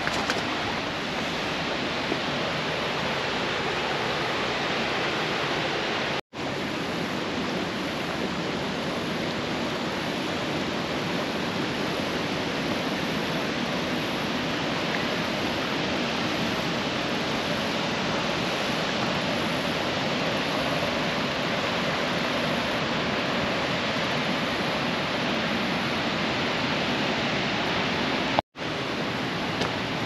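Shoal Creek rushing steadily over shallow, rocky riffles. The sound cuts out briefly twice, about six seconds in and near the end.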